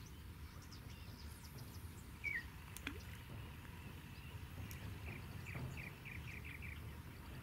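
Outdoor ambience with birds calling: a single chirp, then a quick run of about eight short repeated notes about five seconds in, over a low steady rumble. A single sharp click about three seconds in.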